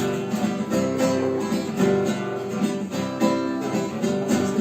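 Strummed acoustic guitar playing a steady chord accompaniment, the instrumental introduction to a sung French chanson.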